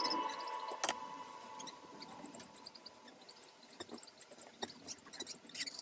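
Faint, high-pitched peeps and squeaks of Fischer's lovebirds, many short calls in quick succession, with a few soft clicks. A music track fades out at the start.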